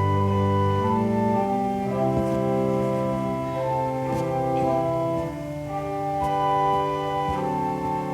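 Organ playing a slow offertory piece in held chords that change about every second.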